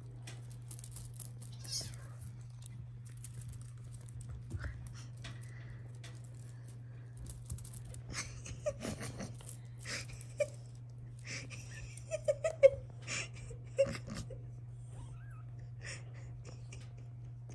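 British shorthair kittens playing on a fabric blanket: paws and claws scuffing and scratching the cloth in quick irregular bursts, with a few brief mews in the latter half. A steady low hum runs underneath.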